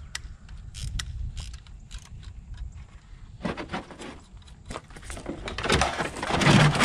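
Sharp clicks and light clattering of car parts being handled, then a few seconds of scraping and rattling as a large crumpled plastic body panel is shifted, loudest near the end with a dull knock.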